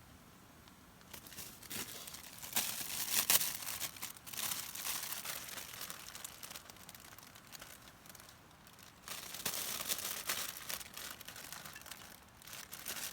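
Crinkling and rustling of something being handled, in two spells of a few seconds each, with a few sharper crackles in the first.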